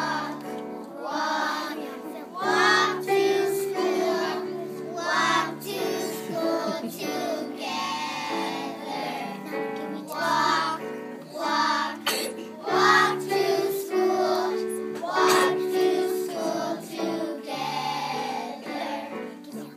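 A group of young children singing a song together in unison over instrumental accompaniment, in phrases with short breaks between them.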